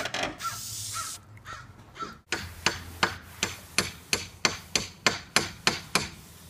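Aerosol can of 3M headliner spray adhesive hissing for about a second, cutting off suddenly. Then a quick run of pats, about three a second, as a hand presses the fabric down onto the glued headliner board.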